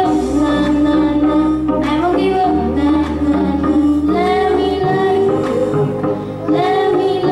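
A boy singing into a microphone over an instrumental backing, holding long notes.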